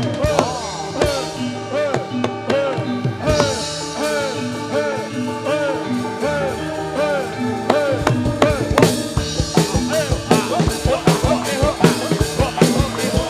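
Live gamelan music for a jathilan dance: drums beating a steady rhythm over ringing pitched percussion. The drumming grows busier about two-thirds of the way in.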